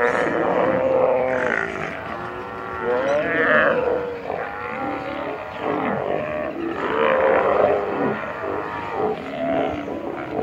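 A colony of sea lions hauled out on a rock, many calling at once in a loud, overlapping chorus.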